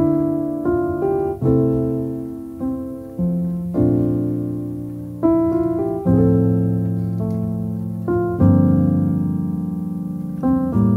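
Slow background piano music: single notes and chords struck about once a second, each left to ring and fade, with longer held chords in the second half.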